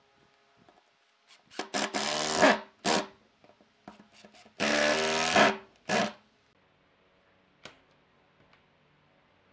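Makita cordless drill driving two long wood screws into a wooden disc. The motor whine drops in pitch as each screw draws in, in two runs of about a second each, each followed by a short final burst to seat the screw.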